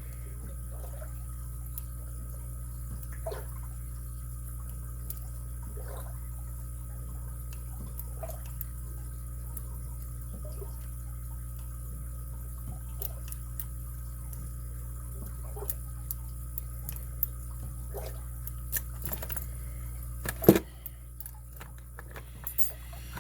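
Lock pick and tension wrench working in a padlock keyway: scattered faint metallic clicks and ticks as pins are set, over a steady electrical hum, with one much louder sharp click near the end.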